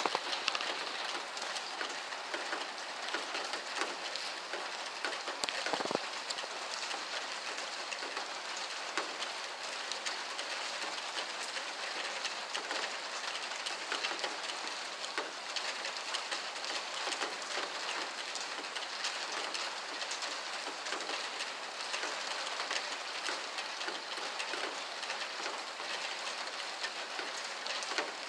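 Heavy rain falling steadily, a dense even hiss of drops with many small ticks of drops striking, and one louder splat about six seconds in. No thunder is heard.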